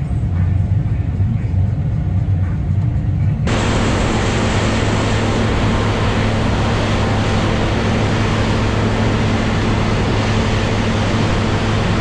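Steady low engine drone, muffled as heard inside a tractor cab alongside a New Holland combine harvester. A few seconds in it cuts abruptly to a loud, even rushing hiss of barley pouring from the combine's unloading auger into a grain trailer, over the engine hum.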